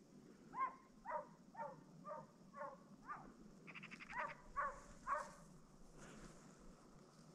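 A Russian hound barking in a run of about nine short barks, roughly two a second with a brief pause midway. This is the hound giving voice as it works a hare's trail. A short burst of rapid clicking comes just before the last three barks.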